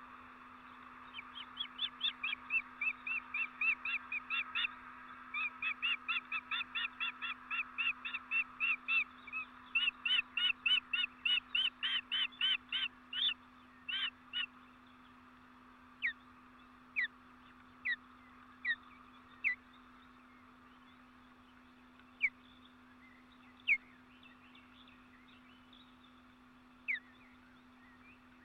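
A bird calling: rapid trains of short, repeated high notes, about four a second, for some thirteen seconds. After that, single short calls falling in pitch come every second or few seconds.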